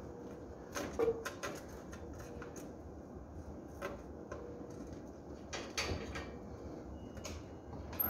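Hands handling a refrigerator's wiring and plastic connectors: scattered small clicks and taps over a steady low hum.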